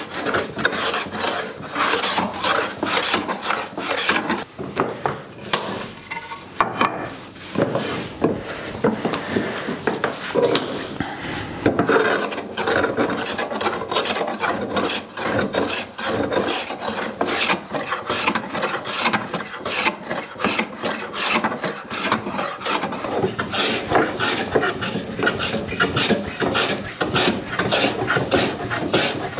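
Metal bench hand plane cutting shavings along a sapele tiller blank in quick repeated strokes, each a rasping hiss of the blade shearing the wood, with a brief pause about six seconds in.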